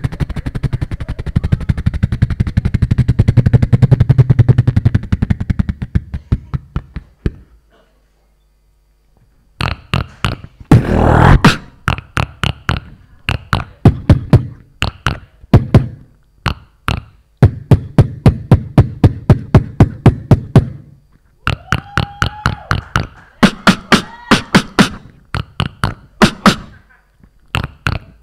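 Beatboxing through a handheld stage microphone. A fast rattling roll over a low bass fades out, and after a pause of about two seconds a rhythmic beat of sharp percussive mouth sounds begins. The beat carries a breathy hiss and a short hummed tone.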